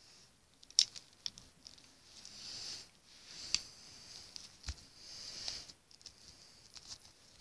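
Hands moving a plastic Monster High doll about: soft rustling of clothing and fabric with a few sharp clicks and taps, the loudest about a second in.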